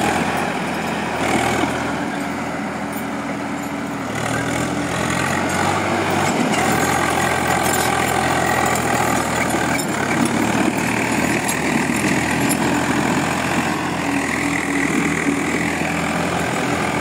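Diesel tractor engine running steadily, its speed shifting a little every few seconds.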